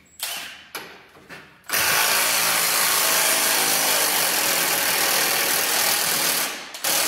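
Cordless impact wrench working the rear track bar bolt on a Jeep JK axle: a few short trigger blips, then a long, loud hammering run of about five seconds. A brief pause comes near the end, then it runs again.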